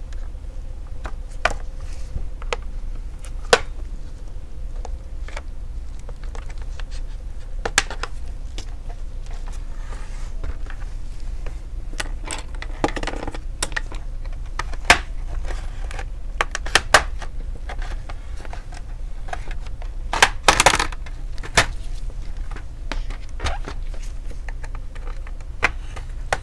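Scattered sharp clicks and snaps of a plastic laptop case being handled and pried open with a plastic pry tool, with a louder cluster of clicks about three-quarters of the way through, over a steady low hum.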